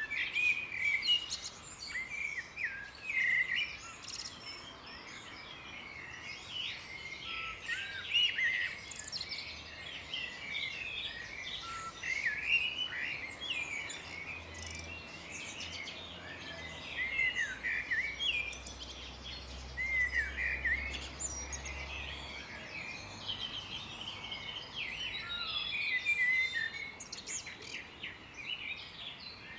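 Several songbirds singing and chirping together, with many short calls overlapping at different pitches throughout.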